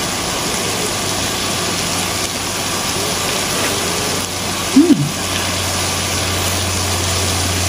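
A steady low hum with an even hiss behind it throughout. About five seconds in, a short hummed "mm" from the eater, rising and then falling in pitch.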